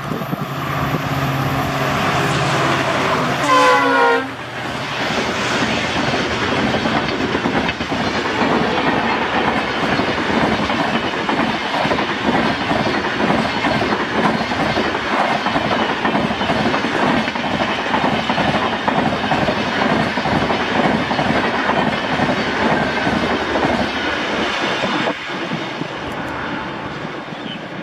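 A WDP-4D diesel locomotive's horn sounds steadily as the train closes in, then drops in pitch as the locomotive passes about four seconds in. The rush and rail clatter of a passenger express's LHB coaches passing at speed follow. The noise falls off suddenly about 25 seconds in as the last coach goes by.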